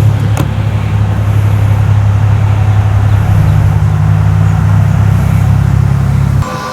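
A loud, steady low hum that stops abruptly near the end.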